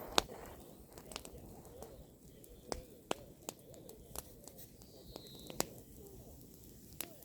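Bonfire of pruned apple branches crackling, with sharp, irregularly spaced pops over a low background; the loudest pop comes just after the start.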